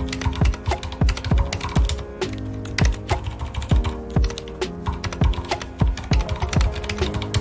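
Typing on a mechanical keyboard with red (linear) switches: a steady stream of quick key clicks, over background music with held notes and a low beat.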